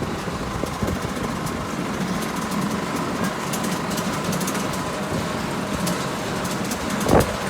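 Potato harvesting machinery running steadily: an engine hum with scattered light clicks over it, and one heavier knock about seven seconds in.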